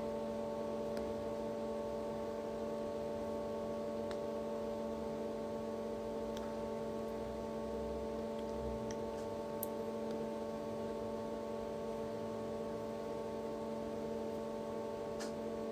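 Steady electrical hum made of several held tones, with a few faint clicks.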